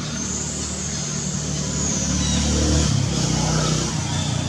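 A motor vehicle passing, its engine rumble getting louder to a peak about three seconds in and then falling away, over a steady high-pitched hiss.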